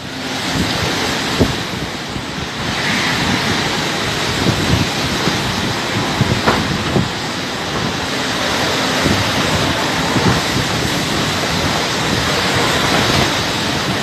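Hurricane winds blowing loud and steady, with gusts buffeting the microphone.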